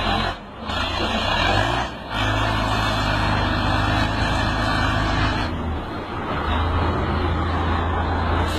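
Heavy machinery engine running steadily, with abrupt breaks and changes in the sound about half a second in, about two seconds in, and again about five and a half seconds in.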